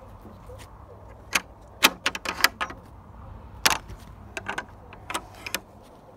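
Irregular sharp clicks and knocks, several in quick succession about two seconds in and a few more later, from a wooden field gate and its black metal barrel bolt latch rattling.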